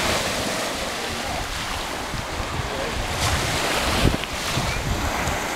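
Small sea waves breaking and washing up on a sandy beach, with wind buffeting the microphone; the strongest gust comes about four seconds in.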